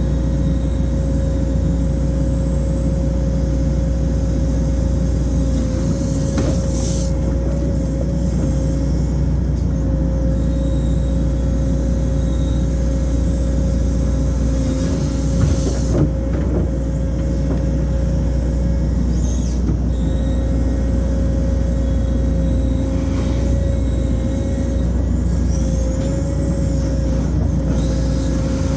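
Excavator's diesel engine running steadily under working load, with a constant hydraulic pump whine. A couple of brief knocks come about six seconds in and again around sixteen seconds.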